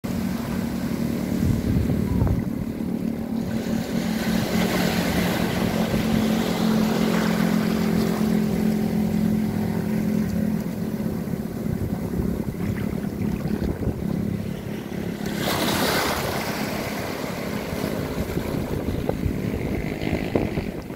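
Choppy waves washing and breaking against a concrete seawall, with wind buffeting the microphone and a loud gust of rushing noise about three-quarters of the way through. A steady low hum sits under it for most of the time and fades after the gust.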